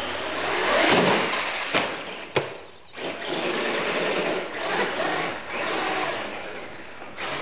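Scale RC monster truck's motor whirring as it drives, rising and falling in swells as it speeds up and slows, with two sharp knocks about two seconds in.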